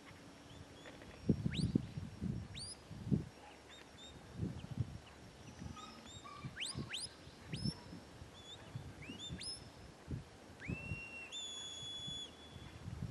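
Shepherd's whistle commands to a working sheepdog: a string of short, sharp rising whistles, then near the end a few longer held notes with a quick rising start. Irregular gusts of wind buffet the microphone, the strongest about a second in.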